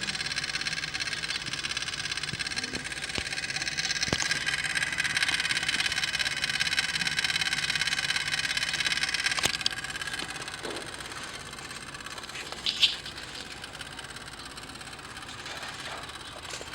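Rapid, steady clicking from a component in the engine bay of a Toyota Hilux's 3.0 L 1KD-FTV diesel, heard with the key switched to ON and the engine not running. The clicking fades out about ten seconds in. A couple of sharper single ticks and a brief louder knock near the end stand out.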